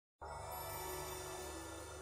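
Quiet intro music that cuts in just after the start, with a low bass line under sustained tones.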